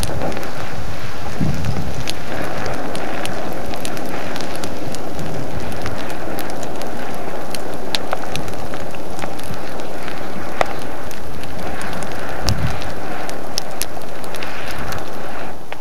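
Littoral explosions as a lava bench collapses into the sea: a steady rushing hiss of steam and tephra, dotted with many sharp cracks. Deep booms come about a second and a half in and again about three seconds before the end.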